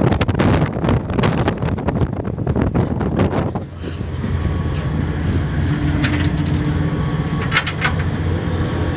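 Wind buffeting the microphone in gusts. About three and a half seconds in, the sound changes to a steady low drone of a ship's engine running.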